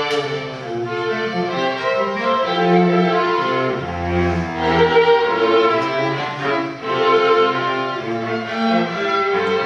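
String quartet of two violins, viola and cello playing live: sustained bowed notes in several moving lines, with two strong low cello notes about four seconds in.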